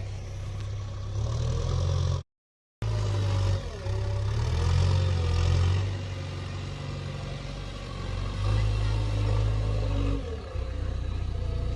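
Heavy diesel engine of earthmoving machinery running, its revs and load swelling and easing several times. The audio drops out completely for about half a second near the start.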